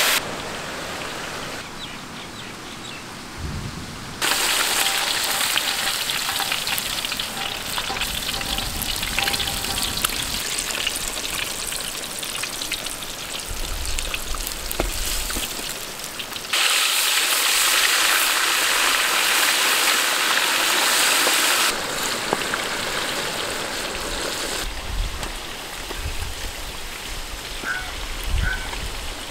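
Fish pieces deep-frying in vegetable oil in a large iron kadai: a continuous hissing sizzle with fine crackles. Its level jumps abruptly up or down several times.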